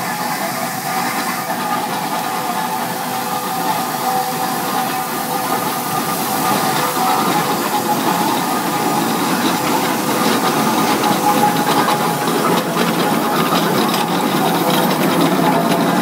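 Steam ploughing engine running on the road, with hissing steam and mechanical rattling, growing louder as it draws close and passes.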